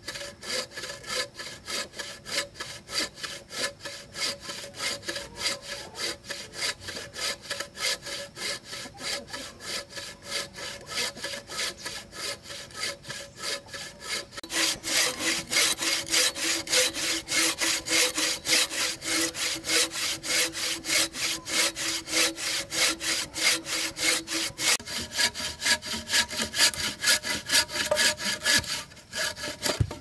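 Bow saw cutting through a dry, weathered log in steady, rapid back-and-forth strokes. The strokes grow louder from about halfway and stop just before the end as the cut goes through and the log falls in two.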